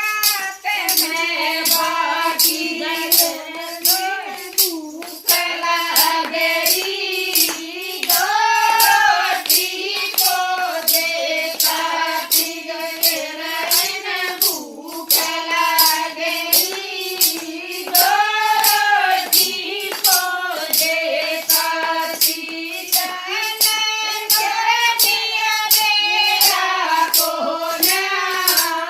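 Singing of a Haryanvi devotional bhajan, with a steady, quick beat of sharp percussion strikes.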